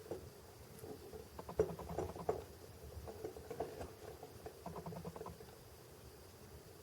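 Light clicks and small taps of diecast model parts being handled, as a metal jib cylinder is fitted back onto a 1/50 scale model crane, in two flurries.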